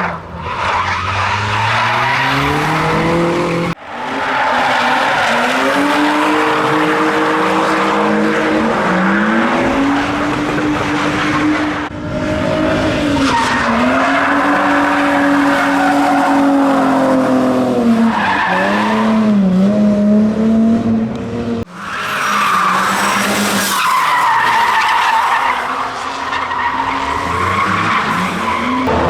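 Drift cars' engines revving hard and changing pitch through the slides, with tyres squealing and skidding. The sound breaks off sharply three times and picks up again.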